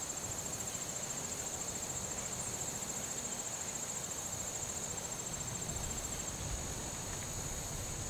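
Insects trilling steadily: a continuous high, fast-pulsing trill, with a soft low rumble beneath it.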